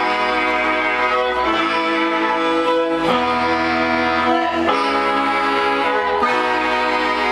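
Live instrumental music led by two bowed violins, one electric and one acoustic, playing held notes over a backing. The harmony changes about every second and a half.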